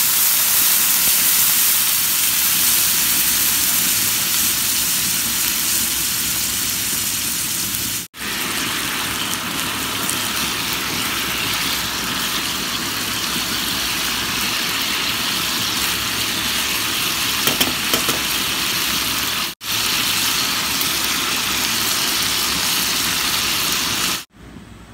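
Beef steak slices sizzling steadily in a pan as the boiling water they were cooked in steams off and they fry in the fat. The sizzle cuts out briefly twice, and a few light clicks come a little past the middle.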